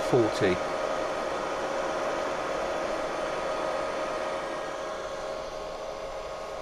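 Steady hiss with a faint, even whine running through it, easing off slightly toward the end.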